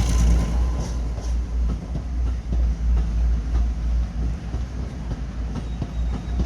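A diesel-hauled train running on the line: a heavy, steady low rumble with a run of sharp wheel clicks over the rail joints.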